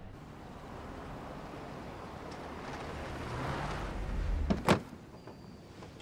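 A car driving up on a dirt road, growing louder and then stopping, followed by one sharp thump about three quarters of the way through.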